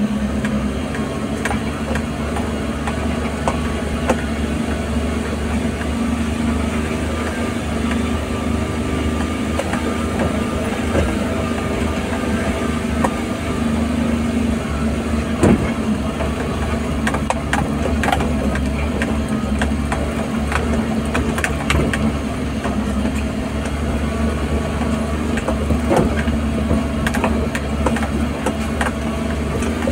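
Vehicle engine running steadily at low speed, heard from inside the cabin, with scattered knocks and rattles as the vehicle jolts over a rutted, steep dirt track.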